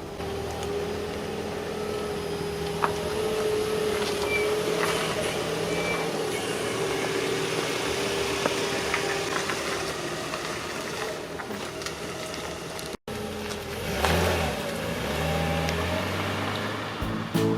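2000 Infiniti I30 on the move, a steady engine and road hum with a faintly wavering tone, briefly cut off about thirteen seconds in.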